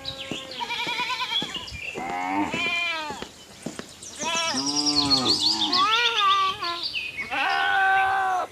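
Livestock bleating: a series of wavering calls, one after another.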